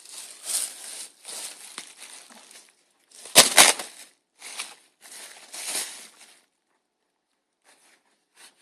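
Packaging crinkling and rustling in bursts as a knife is unwrapped by hand, with two loud sharp crackles about three and a half seconds in; the handling stops about six and a half seconds in.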